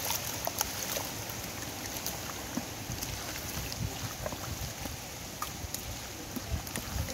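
Hands squelching and sloshing through wet mud and shallow water, with small scattered clicks and splashes over a steady watery noise.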